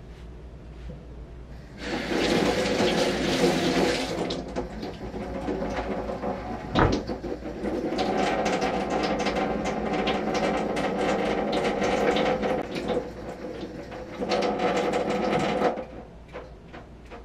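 Water running in three spells, the middle one the longest, with a single sharp knock about seven seconds in.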